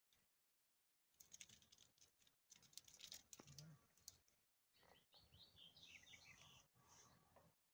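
Very faint sounds: a kitten's claws scratching and catching on the bark of a thin trunk as it climbs, a run of small clicks and scrapes. About five seconds in, a few faint high bird chirps.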